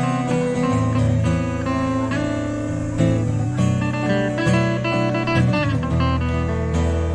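Two acoustic guitars playing a song together, with strummed chords over sustained low notes.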